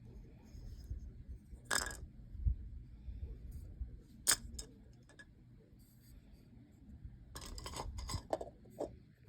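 Light clicks and clinks from handling a small 3D-printed plastic egg container and the small hard items inside it, over a low handling rumble. There is a single click about two seconds in, a sharper one past four seconds, and a quick cluster near the end.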